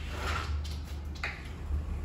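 Sliding glass balcony door rolling open on its track: a short scraping slide early on, then a click about a second in, over a steady low rumble.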